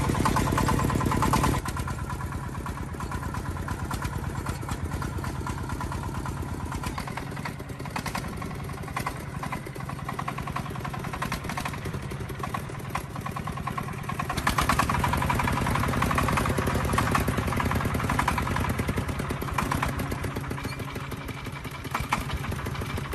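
Diesel engine running with rapid, even firing pulses, louder for the first second and a half and again from about 15 to 20 seconds in.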